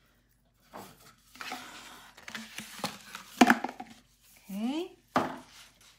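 Handling noises: a rustle, then several sharp clicks and knocks, the loudest about three and a half seconds in, as paper sheets and tools are moved about and set down on a work table.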